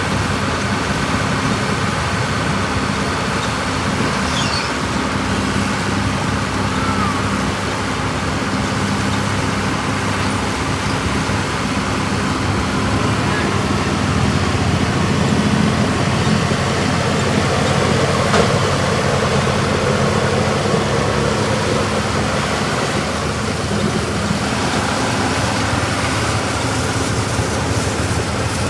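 Tractor engine running steadily at a constant speed, with machinery noise over it.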